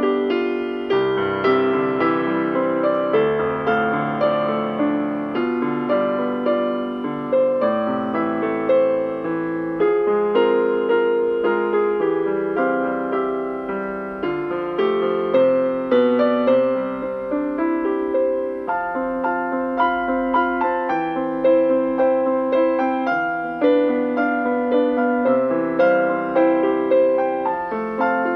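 Piano playing a gentle, simple song melody over chord accompaniment, notes struck at a steady moderate pace.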